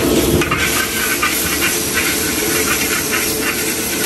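Mee goreng noodles sizzling in a hot wok, with the steel ladle scraping and knocking against the wok about three times a second as they are stir-fried.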